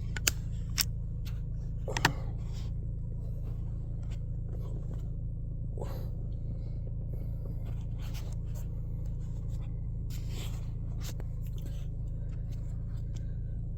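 Car engine idling steadily as it warms up from a cold start, with a few sharp clicks and knocks in the first two seconds and scattered short scrapes.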